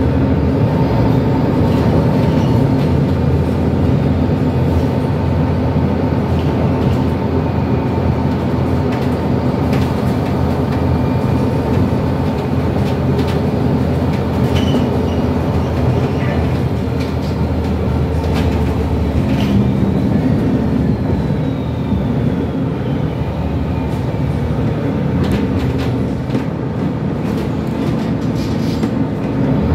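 MAN A22 Euro 5 city bus driving, heard from inside the passenger cabin: a steady drone of its diesel engine and road noise, with a steady whine and scattered light rattles from the interior fittings.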